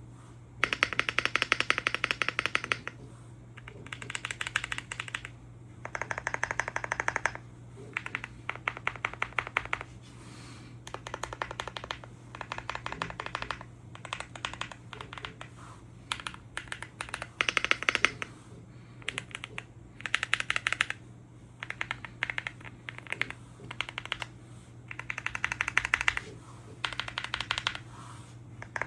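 Typing on a WOBKEY Zen 65 aluminum mechanical keyboard: runs of rapid keystrokes, each a second or few long, broken by short pauses, over a low steady hum.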